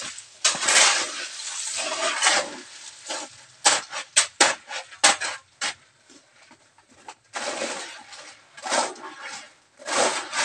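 Steel shovels scooping and scraping into a heap of crushed-stone gravel, the stones rattling and clinking. Several longer scrapes come early, then a run of short sharp clinks, a brief lull just after the middle, and more scoops near the end.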